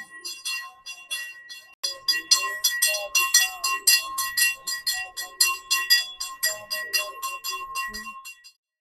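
A small bell rung rapidly and evenly, about four or five strikes a second, every strike at the same ringing pitch, with faint voices beneath. It breaks off briefly about two seconds in, resumes louder, and stops near the end.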